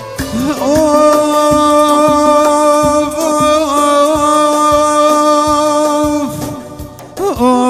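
Kurdish song music: one long held melody note, ornamented as it begins, sustained over a steady drum beat. Just after six seconds the note slides down and the music dips, then a new phrase begins near the end.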